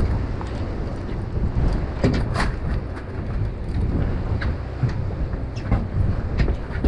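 Steady low rumble of wind on the microphone and the fishing boat's motion, with scattered sharp knocks and clicks, a few a second apart.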